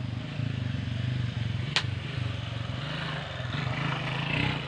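A small engine running steadily, with one sharp click a little under two seconds in.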